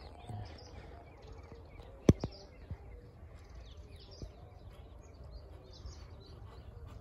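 Small birds chirping over a low outdoor rumble, with one sharp knock about two seconds in and a couple of fainter ticks after it.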